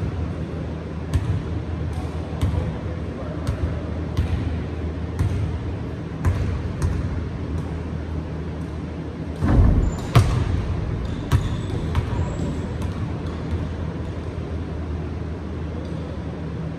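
Basketball dribbled on a hardwood gym floor, a bounce about every second, with a couple of louder thuds about ten seconds in, over a steady low hum.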